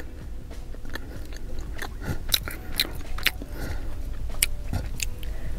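Biting into and chewing a flaky rose-flavoured flower pastry close to the microphone, with irregular crisp crackles from the flaky layers.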